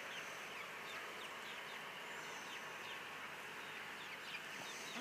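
Faint steady outdoor hiss with many short, faint high peeps scattered through it, from young birds in the pen.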